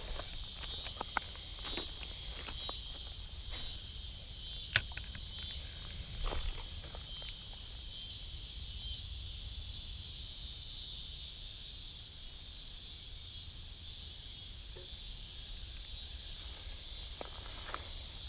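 A steady, slightly pulsing chorus of insects chirping. Scattered clicks and knocks fall in the first several seconds, with one sharp click about five seconds in.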